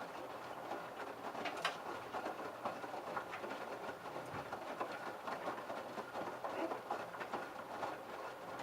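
LG F1222TD direct-drive washing machine drum turning with wet laundry tumbling during the prewash: an irregular clatter of small clicks and knocks over a faint, steady motor hum.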